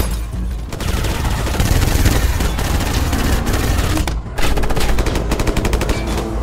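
Rapid automatic rifle fire, many shots in quick succession over a low rumble, with a short break a little after four seconds before the firing picks up again.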